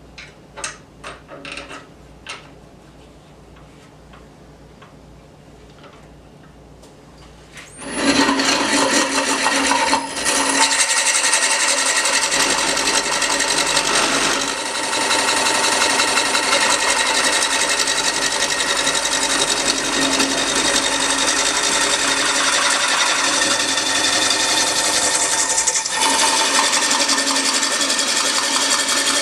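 A few light clicks, then about eight seconds in a Ringmaster ring-cutting tool bites into a laminated wood blank spinning on a Delta 16/42 wood lathe, giving a loud, steady scraping cut that goes on with only brief dips.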